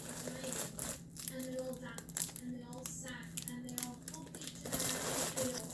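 Hands handling a packaged item, with plastic packaging crinkling and scattered light clicks and taps.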